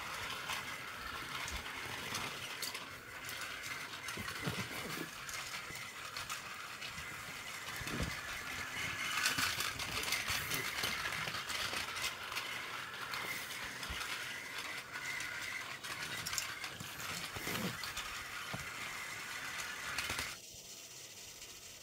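Battery-powered Plarail toy train running on plastic track: a steady gear-motor whir with rapid, faint clicking, which cuts off abruptly near the end.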